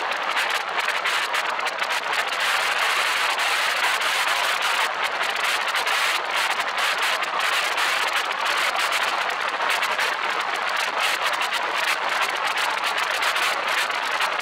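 Steady rushing wind and road noise from a car driving along a paved road, heard through a camera microphone on the car's roof, with a fine crackle of wind buffeting the microphone.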